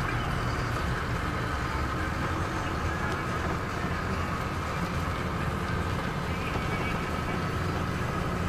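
Car driving on a paved road, heard from inside the cabin: a steady engine and tyre rumble with a faint, thin whine above it.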